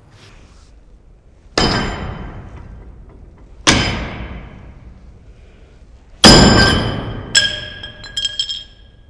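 Eight-pound sledgehammer striking a welded steel test piece clamped in a bench vise, being hammered to break the weld: three heavy metallic clangs a couple of seconds apart, each ringing out, the third loudest. Near the end a sharper clank and a few light metallic clinks follow.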